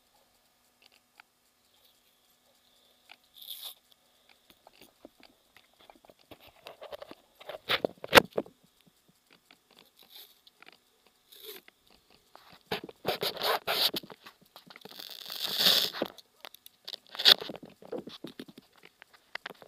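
Handling noise from a small camera being held and covered: clothing and skin rubbing and scraping against the microphone, with scattered clicks and a sharp knock about eight seconds in.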